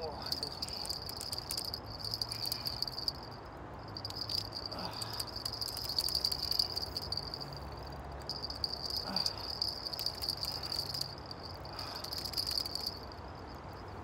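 A cricket trilling steadily at a high pitch, stopping briefly every few seconds and starting again. Bursts of fine rapid clicking come and go over it.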